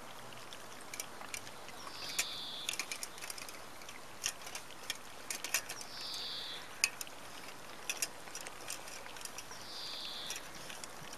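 Hovawart puppies eating from stainless-steel bowls held in a metal rack: scattered clicks and clinks of teeth and food against the metal. A short high bird call repeats about every four seconds.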